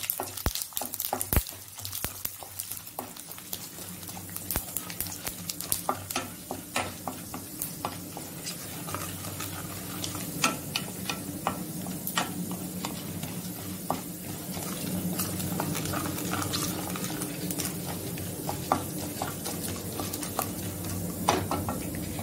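Tempering spices (urad dal, chana dal, cumin and mustard seeds) sizzling in hot oil in a kadai while a wooden spatula stirs them, with scattered sharp clicks. The sizzle grows louder about two-thirds of the way in as the spices fry.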